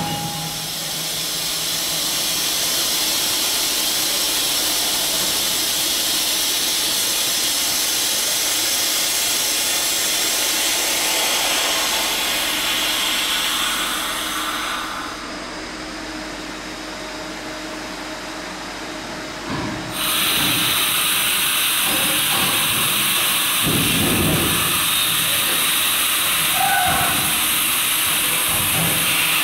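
Steady hiss of air from a London Underground battery-locomotive engineering train standing at the platform. It eases off about halfway through and cuts back in suddenly about two-thirds in, with a few low thuds near the end.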